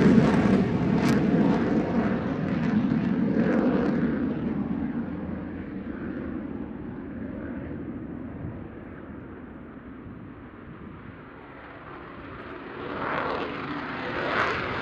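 F-35A Lightning II jet engine noise on take-off, loud at first and fading as the fighter climbs away, then rising again near the end.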